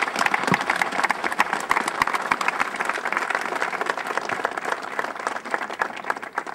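Crowd applauding, a dense steady clatter of hand claps that thins out and tapers off near the end.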